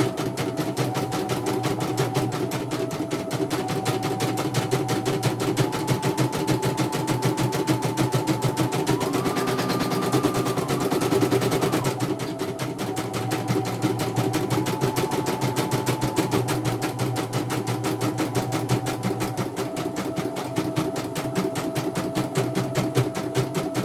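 CNY portable embroidery machine stitching a design: a rapid, even chatter of needle strokes over a motor whine that steps up and down in pitch, rising highest about halfway through.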